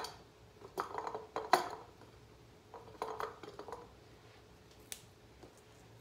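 Okra pods being packed into a glass jar: several short knocks and taps of pods against the glass, with a single sharp click near the end.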